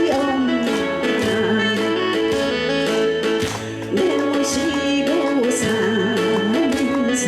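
A singer performing a Korean folk-style song (minyo), the voice bending and wavering in ornamented turns over an instrumental backing with a steady beat.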